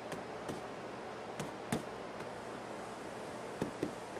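Several sharp knocks, unevenly spaced, from a rubber mallet tapping the tenons of cedar log legs into the holes of a pine tabletop. The loudest knock comes about two seconds in, and two come close together near the end, over a steady background hiss.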